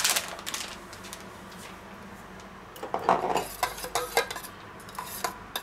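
A metal spoon stirring tomato sauce in a stainless-steel bowl, clinking and scraping against the side in quick bursts from about three seconds in. A few light clicks at the start come as herbs are shaken in from a small glass jar.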